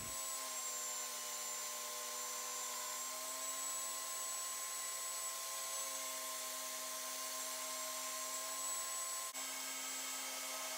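Sherwood 13-inch helical spiral-head thicknesser running with a dust extractor, a steady machine whine with a high tone over an even rushing noise, as a rough jarrah board is fed through for a first planing pass.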